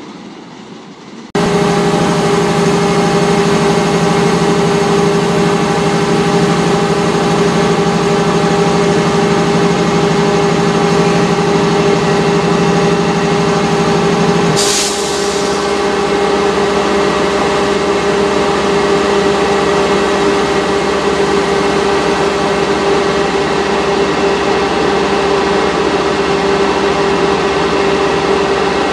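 MBTA HSP46 diesel locomotive standing and running with a steady, loud hum. About halfway through there is a short hiss of air, and one low part of the hum drops out.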